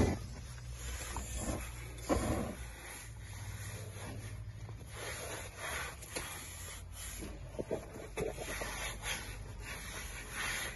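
Gloved hands rubbing and pressing a torch-on asphalt membrane against a wall, with scattered soft knocks over a low steady hum.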